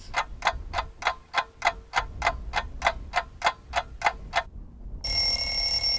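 Clock ticking sound effect counting down, about four ticks a second for some four seconds, then a bell-like tone rings out loudly about five seconds in.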